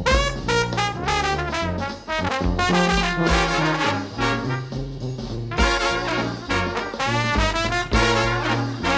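Instrumental background music led by brass horns, with note-to-note melodic lines over a moving bass line.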